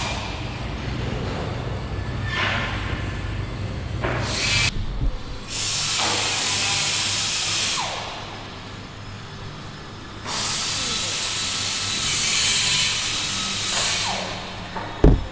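Compressed air hissing in three long bursts, each several seconds, with a sharp knock just before the end.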